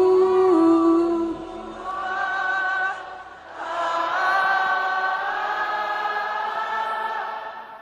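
Worship singing in long held notes, choir-like and without clear words. A lower voice wavers on its note at first. After a short dip about three and a half seconds in, a new sustained chord sets in.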